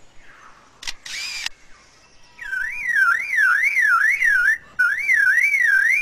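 Superb lyrebird mimicking a camera with a motor drive, a click and a short whir about a second in, then mimicking a car alarm: a siren tone sweeping up and down about three times a second, starting a little past two seconds in and broken once briefly.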